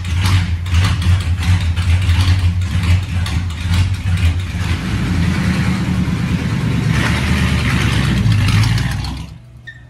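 Hot-rod roadster's flathead V8 running with a low, lumpy rumble and light throttle blips as it is driven off; the sound cuts off abruptly near the end.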